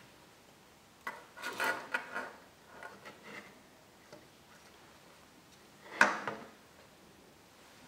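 Hands handling jumper wires and small plastic parts on a tabletop: light rustling and tapping, then one sharp click about six seconds in, the loudest sound.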